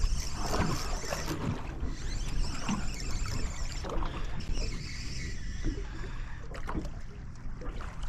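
Water slapping and lapping against the hull of a small drifting boat over a steady low rumble, with a few light knocks.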